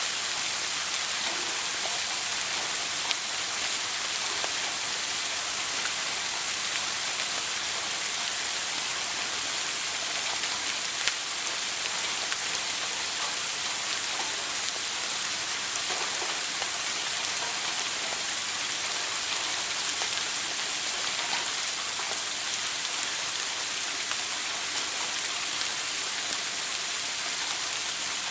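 Shower water spraying and pattering steadily onto a hard surface, an even hiss with an occasional sharper drop.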